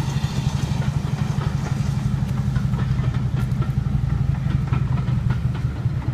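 Railway train running with a steady low rumble, with light clicking coming in over the last few seconds.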